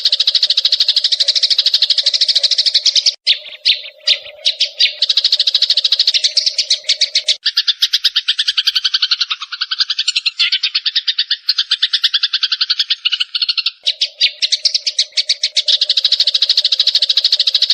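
Sparrows chirping in a fast, even stream of high chirps, many a second. The chirping breaks up briefly a little after 3 s, changes to a lower run of chirps from about the middle, and returns to the first pattern near the end.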